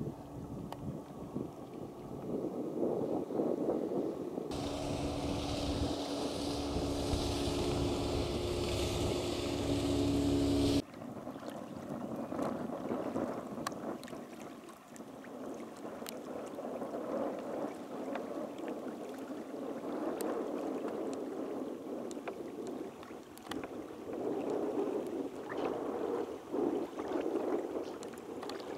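Wind on the microphone and small choppy waves slapping and lapping against a kayak hull, with scattered small splashes. From about four seconds in, a steady drone with several held tones and strong hiss joins for about six seconds and cuts off abruptly.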